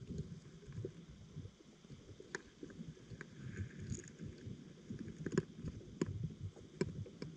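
Underwater sound through a GoPro's waterproof housing: a low, uneven rumble of moving water with a handful of sharp clicks.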